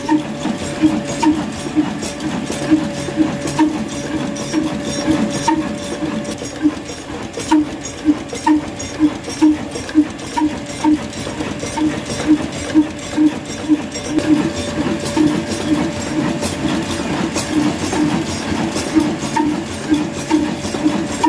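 Old Ruston Hornsby single-cylinder stationary diesel engine running steadily, with a slow even beat a little over two a second and a mechanical ticking from the valve gear.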